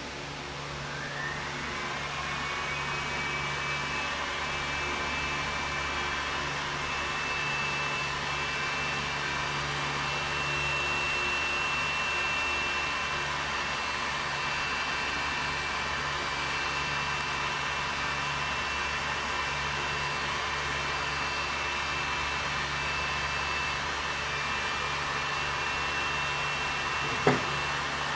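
Cooling fans of a high-current test load spinning up with a rising whine about a second in, then running steadily while about 290 A is drawn through a 300 A circuit breaker. A sharp click near the end.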